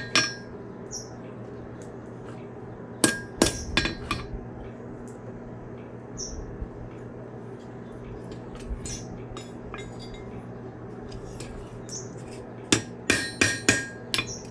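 Hand hammer striking a railroad-spike fork on the anvil, in short bursts of ringing blows: one near the start, a group of about five around three to four seconds in, and another group of about five near the end. A steady low hum runs underneath.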